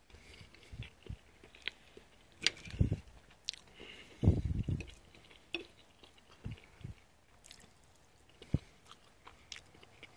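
A person eating a meal close to the microphone: chewing, with small clicks of cutlery on a plate, in short irregular bursts, the loudest about four seconds in.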